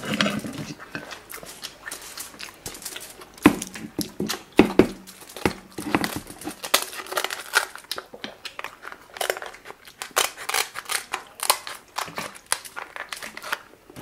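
Close-miked shell cracking and snipping: a king crab leg's shell is cut with kitchen scissors while other seafood shells are broken open by hand, giving a run of irregular sharp cracks and snips.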